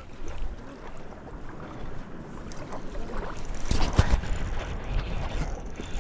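Wind buffeting the microphone as a steady low rumble, with a few sharp knocks of handling noise about four seconds in.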